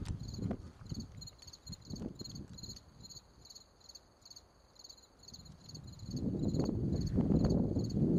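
Crickets chirping in a steady, fast repeating rhythm. From about six seconds in, a louder low rumbling noise rises under them.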